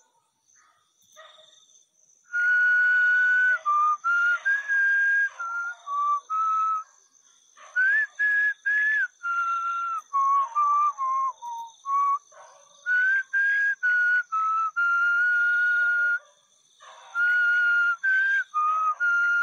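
A person whistling a slow tune: held notes stepping up and down in pitch, starting about two seconds in, with short breaks between phrases and a breathy edge to the tone.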